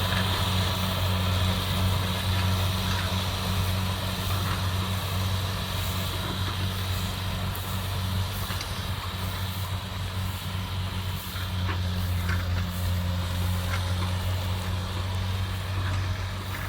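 Kubota DC70 combine harvester's diesel engine running steadily under load with the clatter of its cutting and threshing gear, harvesting rice at speed.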